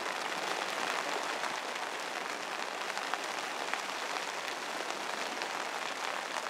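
Rain pattering on a sailboat's canvas cockpit cover: a steady hiss dotted with small ticks of individual drops.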